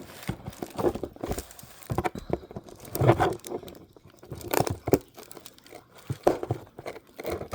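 A mailed package being cut and torn open with scissors: irregular crinkling, rustling and tearing of the packaging, with small snips and knocks.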